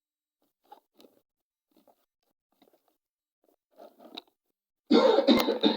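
A few faint clicks and rustles, then about five seconds in a loud cough with throat clearing.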